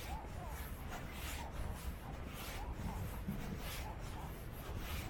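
Footsteps of someone walking a trail: a soft scuff with each step, over a steady low rumble.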